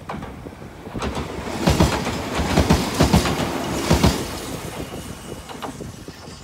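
Kumoya 443 two-car electric inspection train passing close. Its wheels knock over the rail joints in a quick run of clacks about two to four seconds in, then the rumble fades as it pulls away.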